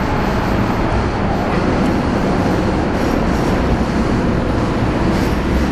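A loud, steady rumbling noise with a hiss above it and no clear rhythm.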